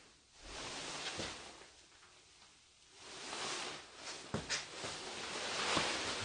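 Rustling and scuffing of a person moving and crouching with a handheld camera and flashlight, with a few light knocks, two of them close together about four and a half seconds in.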